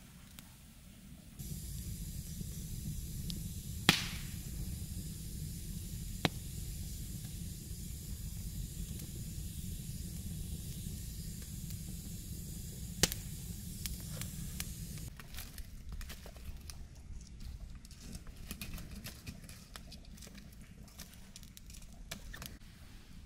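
A steady low rumble with a hiss over it, broken by three sharp snaps, the first the loudest. Later the rumble drops away and a run of light, irregular crackling clicks follows.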